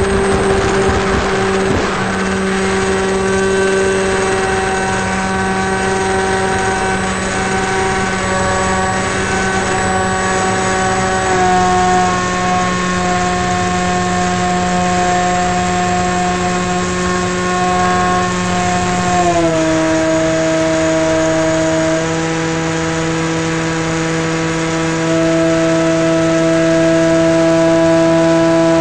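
Onboard sound of a radio-controlled model plane's motor and propeller at high throttle: a steady buzzing drone with a clear pitch through the takeoff and climb. The pitch steps down slightly about a third of the way in and again about two-thirds in, as the throttle is eased.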